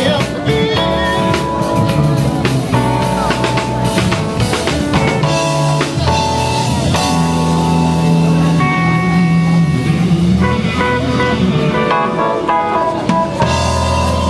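Live band playing, with electric guitars and drum kit to the fore over bass and keyboards.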